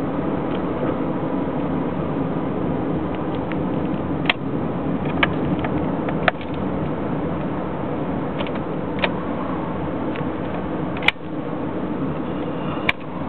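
Sharp, irregularly spaced clicks from behind a car's driver's-side dashboard, about six over a steady cabin hum, heard with the engine shut off while the car is still moving. The clicking goes with an intermittent stall and check-engine light, and the owner suspects an electrical short, perhaps in the ignition switch.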